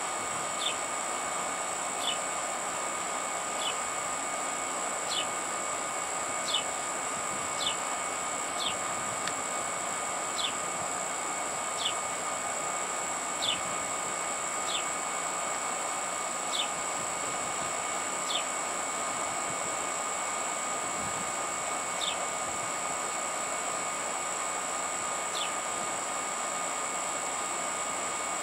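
Steady insect drone over an even hum, with a short, high, falling chirp repeating every second or two.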